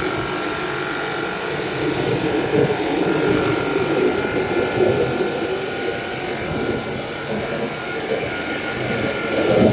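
Battery-powered portable pressure washer running with the trigger held: its small pump motor whines steadily under the hiss of the water jet.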